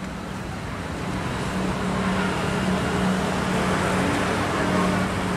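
Street traffic noise with a steady engine hum, swelling slightly about a second in.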